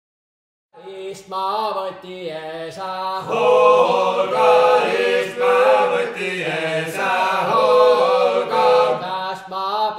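Chant-like folk singing, starting about a second in after a brief silence, with the melody moving in short repeated phrases.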